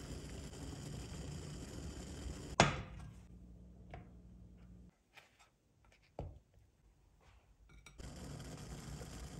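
Water at a rolling boil in a saucepan, a steady low bubbling. About two and a half seconds in it is broken by one sharp knock, then a few soft taps and near quiet, and the boiling comes back about eight seconds in.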